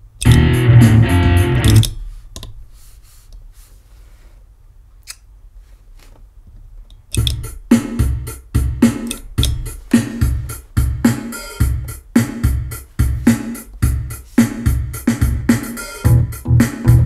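Guitar played through a looper pedal: a loud passage stops abruptly about two seconds in, leaving a low hum with a single click. About seven seconds in, steady rhythmic strumming starts, at about two strokes a second.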